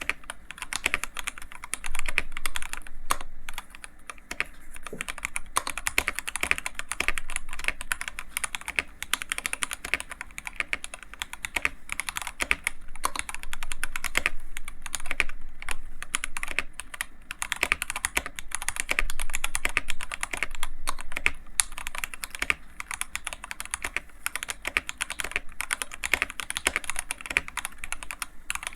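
Continuous fast typing on an Iqunix F97 mechanical keyboard: a dense run of keystroke clacks with a brief lull about four seconds in.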